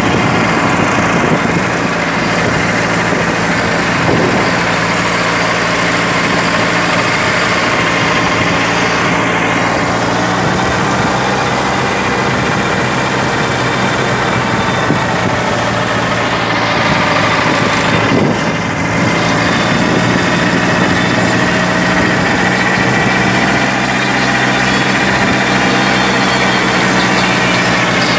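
Kubota 21 hp compact tractor's diesel engine running steadily under load, pulling a rotary tiller through soil. The engine pitch dips and rises slightly a couple of times.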